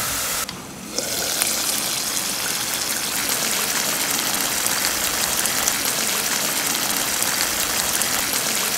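Onions and curry leaves frying in hot oil in a pan: a steady crackling sizzle, with a brief dip about half a second in.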